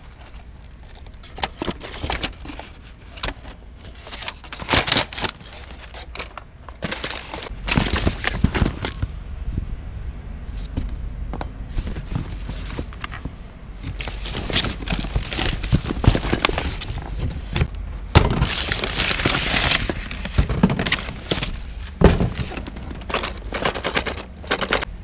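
Hands rummaging through a cardboard box of junk: paper, plastic and cardboard rustling and crinkling, with items knocking and clattering against each other, and a longer, louder rustle about three-quarters through.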